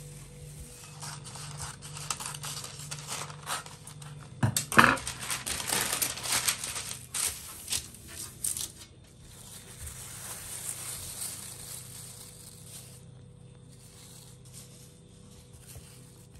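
Baking paper crinkling and rustling as it is crumpled and pressed flat into a metal baking tray, with a sharp knock about four and a half seconds in; the rustling softens and fades out near the end.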